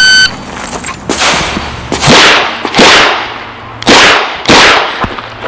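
Electronic shot-timer start beep, then a string of .38 Special revolver shots from a Chiappa Rhino: four loud ones about two, three, four and four-and-a-half seconds in, after a quieter crack near one second, each trailing off in an echo.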